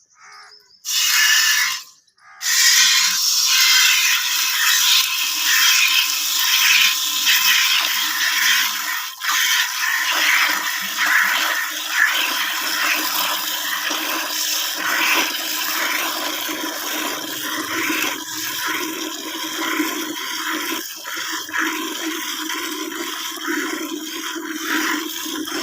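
A water buffalo being milked by hand, with rhythmic squirts of milk streaming into a pail. It starts about a second in, and a low note in the sound grows stronger as the pail fills.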